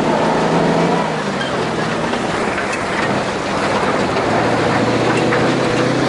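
Engine of an open off-road truck running steadily as it drives along a shallow riverbed, under a steady rush of noise.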